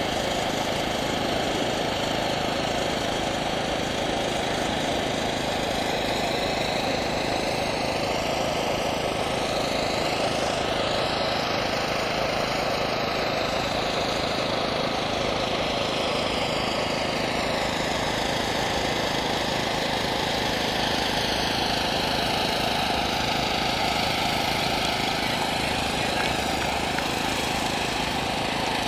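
PZL W-3 Sokół helicopter's engines and rotor making a steady drone overhead, its tone sweeping slowly as it moves across the sky.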